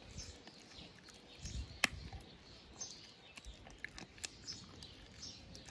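A husky chewing a dried beef chew strip: a few sharp crunching clicks at irregular intervals, the loudest about two seconds in. Birds chirp faintly behind.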